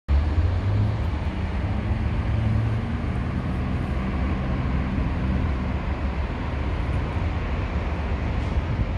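Steady rumble of road traffic, with a vehicle engine's hum in the first few seconds.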